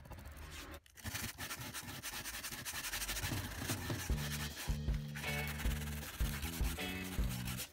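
Dense scratchy rubbing on a surface, a fast run of short strokes like hand sanding. Background music plays along, and a bass line with a beat comes in about four seconds in.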